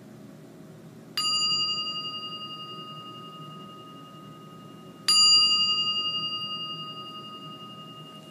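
A meditation bell struck twice, about four seconds apart, each ring clear and slowly fading, the second a little louder, marking the end of the breathing practice.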